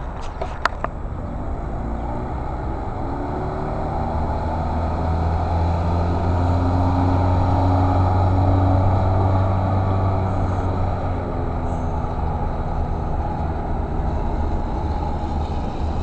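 15 hp Mercury outboard motor on a small Valco aluminum boat running steadily under way as it passes, growing louder to a peak about halfway and then fading as it moves off.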